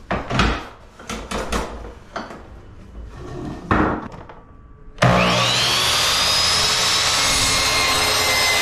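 Baseboard trim knocked and slid into position against the fence of an electric miter saw. About five seconds in, the saw's motor switches on with a rising whine as the blade spins up, then runs steadily while cutting a 45-degree angle in the baseboard.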